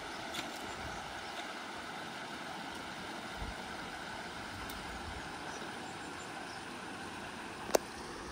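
Steady, even outdoor background hiss from the creekside scrub, with one sharp knock near the end as the camera is handled.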